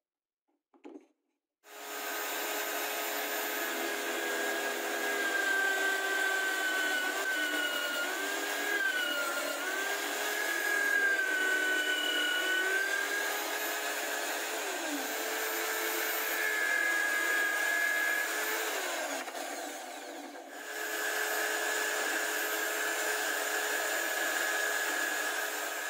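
Electric drill in a wooden drill stand running and boring into a small wooden block, its motor whine bending up and down in pitch as the bit loads and unloads in the wood. The sound eases briefly about three-quarters of the way through, then picks up again.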